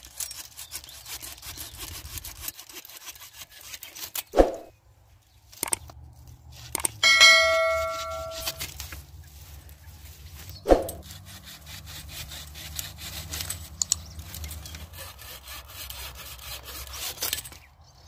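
Hand saw cutting thin dry branches with quick rasping strokes. Two sharp knocks come about four and eleven seconds in, and a bright ringing chime sounds about seven seconds in.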